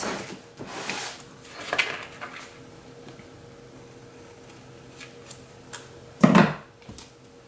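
Paper sticker sheets and a planner being handled on a table: brief rustles of paper in the first couple of seconds, a few faint clicks, and one louder knock about six seconds in as something is set down.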